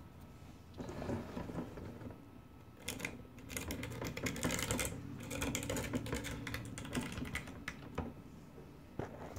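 A metal pick tapping and scratching on the glass pieces of a mosaic, working excess grout off the glass. It makes quick, irregular clicks, busiest in the middle and thinning to a few single ticks near the end.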